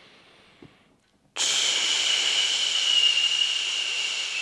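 A man breathing out long and hard through his mouth: a loud, steady hiss of breath that starts suddenly about a second and a half in and slowly eases. Before it, a quieter breath fades out, and there is a small mouth click. This is the forced exhale of a breathing exercise, done to engage the abdominal muscles.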